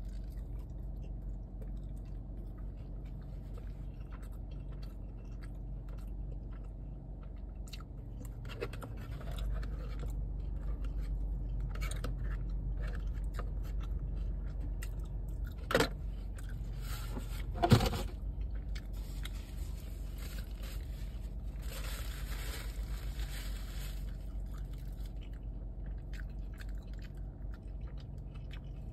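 Close-up chewing of a mouthful of kimchi fries, with a plastic fork scraping at a cardboard takeout box. Two sharp clicks come about two seconds apart in the middle.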